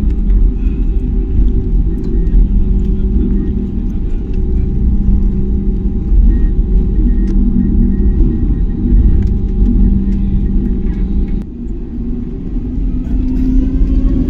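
Cabin noise of an Airbus A320neo: a loud, steady low rumble with a steady hum running through it. About eleven seconds in it drops briefly, and near the end rising whines come in.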